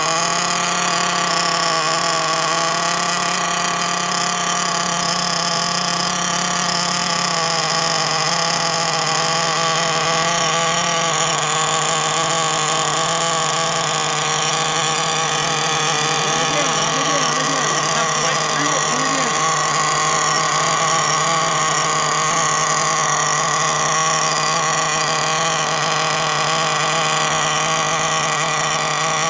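Nitro RC buggy's O.S. Speed 3.5 cc glow engine running steadily at idle, its pitch wavering slightly.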